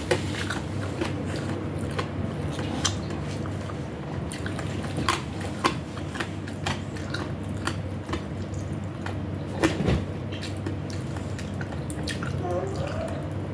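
Eating sounds at a meal of chicken wings and rice: scattered sharp clicks and smacks, a few of them louder, over a steady low hum.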